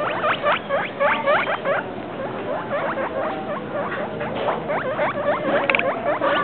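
Guinea pig squeaking in a rapid run of short, high, hooked calls, several a second, thinning out briefly about two seconds in before picking up again.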